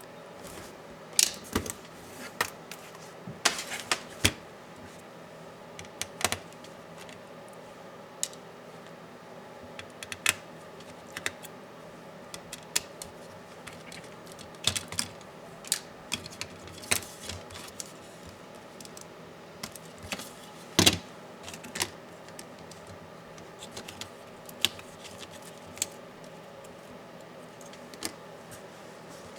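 Irregular sharp clicks and taps of laptop parts and small tools being handled during a hand disassembly, some single and some in quick clusters, over a faint steady hum.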